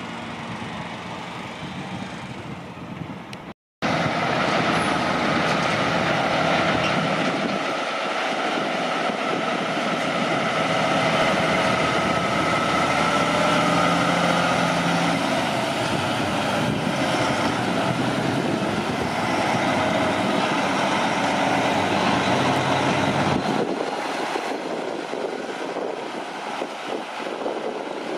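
Heavy truck's diesel engine running under load, its note climbing slowly as it pulls, loud for about twenty seconds before dropping away near the end. A brief cut in the sound comes a few seconds in.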